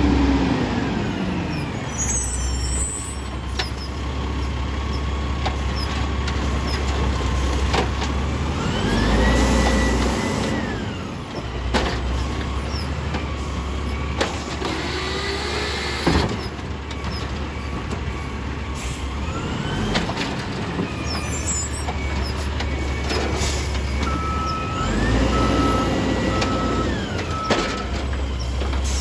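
Automated side-loader garbage truck working its hydraulic arm: the diesel engine runs and revs up and down with rising and falling whines as the arm lifts, dumps and lowers carts, several times over. Sharp knocks come as the carts bang against the hopper, and there is a short run of beeps near the end.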